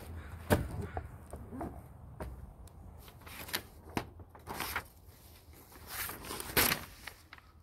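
Irregular rustles, taps and clicks of paper being handled, as catalog pages are turned, with two sharper knocks about half a second in and near the end.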